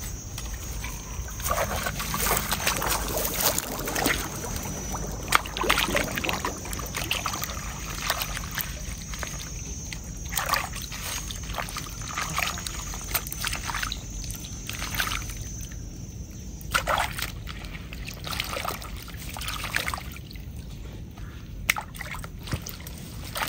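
Water sloshing and splashing in irregular bursts as a plastic basket of mud and small fish is dunked and swished by hand in shallow water, rinsing the mud off the catch.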